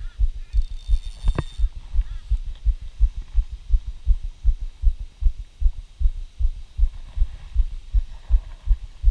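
A person's heartbeat picked up by a chest-mounted GoPro: a fast, steady run of low thumps, about two to three a second, the wearer's chest beating. A short sharp tick comes about a second and a half in.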